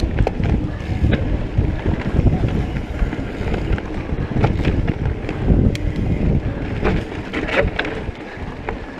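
Mountain bike riding fast over dirt singletrack: wind buffeting the microphone and tyre rumble, with scattered clicks and rattles from the bike over the bumps.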